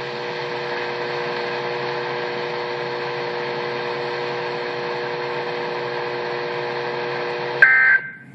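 NOAA weather radio receiver playing the transmitter's dead air, a steady hum and hiss. Near the end comes a short, loud burst of two-tone digital data, the SAME end-of-message code that closes the required weekly test, and then the hiss drops away.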